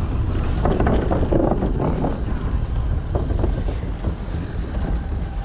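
Wind buffeting the microphone of a camera riding on a moving bicycle: a steady low rumble, louder and busier in the first couple of seconds.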